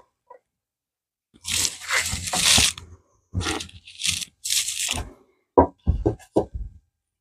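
Wood being worked by hand: several rasping strokes, one long and three short, then a quick run of about six sharp knocks near the end.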